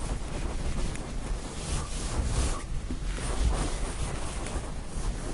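Dry-erase marker drawing on a whiteboard: a run of short rubbing strokes over a low steady room rumble.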